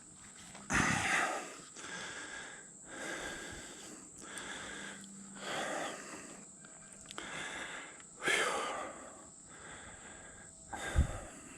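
A man breathing heavily, about five deep, wheezy breaths a couple of seconds apart: he is winded from fighting a big carp. A short thump near the end.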